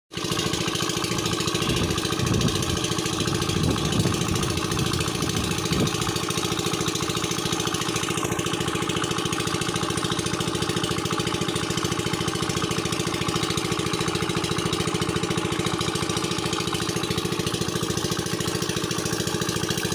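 A small engine running steadily at an even speed, with some extra low rumbling in the first few seconds.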